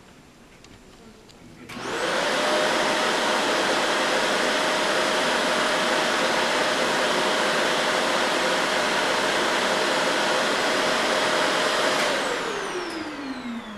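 An electric appliance motor switched on about two seconds in, running steadily with a rush of air, then switched off near the end, its whine falling as it winds down.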